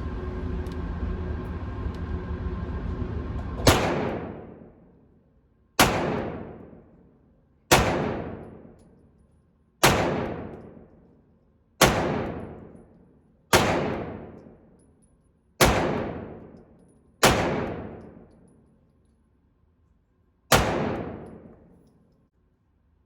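Nine single shots from a 9mm pistol, fired slowly about two seconds apart with a slightly longer pause before the last. Each shot is a sharp crack that rings out and dies away over a second or so. A steady noise with a faint hum runs under the first few seconds and stops at the first shot.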